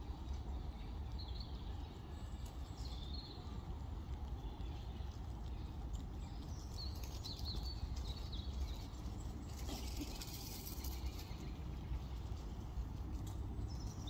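Outdoor ambience with a steady low rumble, short bird chirps every few seconds, and faint patter and rustling of grey squirrels scampering and digging in dry leaf litter.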